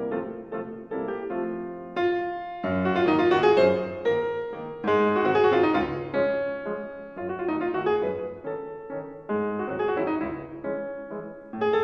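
Piano music: a run of quick single notes gives way, about two seconds in, to slower ringing chords.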